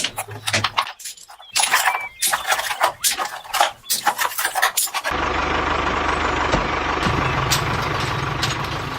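Quick irregular scraping and knocking for about five seconds, then an engine starts and idles steadily with an even low pulse.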